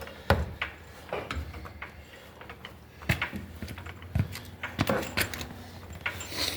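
Scattered clicks and knocks of metal tools and parts being handled around a pickup truck, with a faint low steady hum from about three seconds in.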